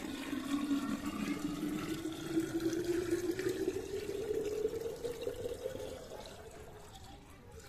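Water poured in a steady stream into a glass jar, splashing and bubbling, with a tone that rises in pitch as the jar fills. The pour tails off about six seconds in.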